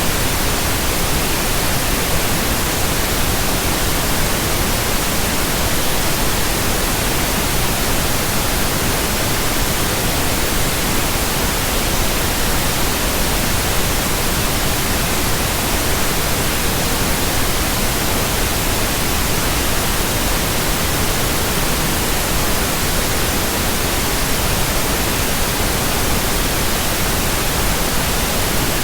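Pink noise: a steady, unbroken hiss across the whole frequency range, with no change in level.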